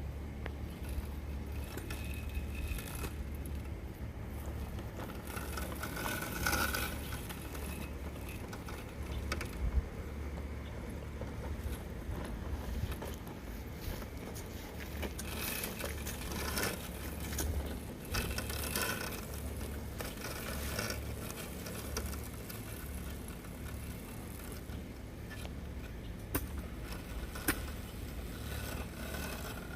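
Husqvarna Automower 115H robotic lawn mower running, a quiet mechanical sound with scattered small rattles and clicks over a steady low rumble.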